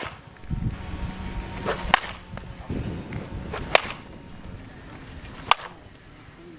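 Softball bat hitting pitched balls: four sharp cracks with a brief ring, about two seconds apart, the first right at the start.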